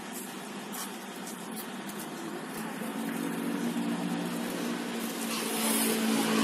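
Street noise with a motor vehicle engine running, a steady hum that grows louder over the second half. A light click about a second in.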